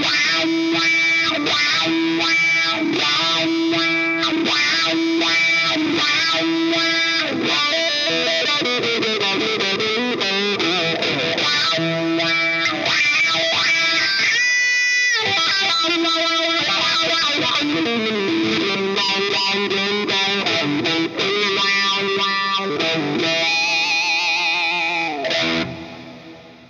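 Electric guitar played through a GTC REVPAD multi-effects unit on a fuzz-and-wah preset: a distorted riff whose tone sweeps up and down. It dies away near the end.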